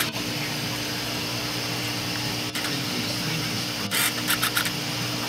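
Steady hum and hiss of aquarium pumps and filtration running, with a click about two and a half seconds in and a short run of clicks near four seconds.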